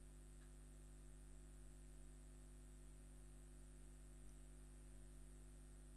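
Near silence: a faint, steady electrical hum from the recording setup.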